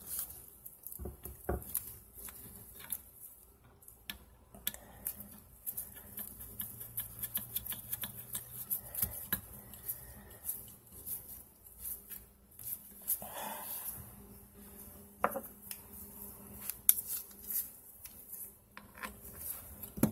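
Irregular small metallic clicks and taps as a braided toilet supply line's coupling nut is threaded onto a shut-off valve and snugged up by hand.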